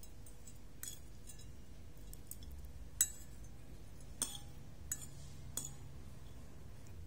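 A metal fork clinking against a ceramic plate while it lifts and tosses noodles: about five short, sharp clinks, the loudest about three seconds in.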